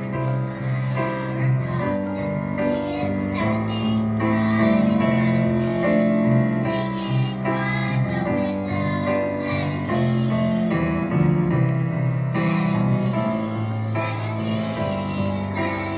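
A group of young children singing together to a piano accompaniment.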